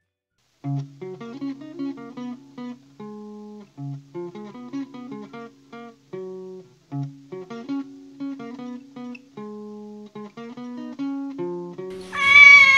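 Background music: plucked acoustic guitar playing a light, bouncy tune, starting about half a second in after a brief silence. Near the end a loud drawn-out high call, sliding slightly down in pitch, comes in over the guitar.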